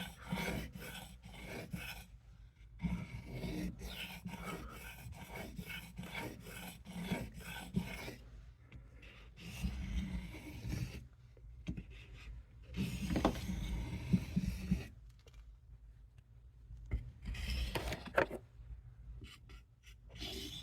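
Steel knife blade being stroked across a sharpening stone, a run of short scraping strokes with brief pauses between sets, working the tip of the edge.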